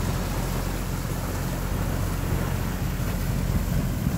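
A boat's engine running steadily as the boat motors along, a low hum mixed with the rush of wind and water.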